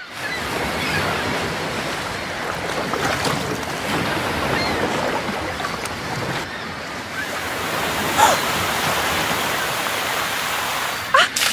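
Ocean waves and surf with wind: a steady rushing that fades in at the start. Two brief sliding cries sound over it, one about two-thirds of the way through and one near the end.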